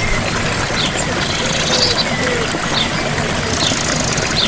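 Gentle waterfall: a steady rush of falling water, with short bird chirps over it every second or so.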